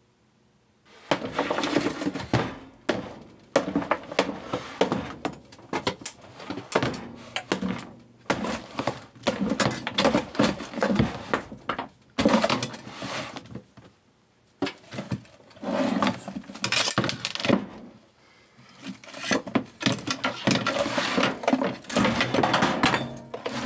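Hammer blows on a Sony subwoofer's pressed-wood cabinet, with repeated irregular strikes and the board cracking and breaking apart as it is smashed open to free the woofer and its magnet.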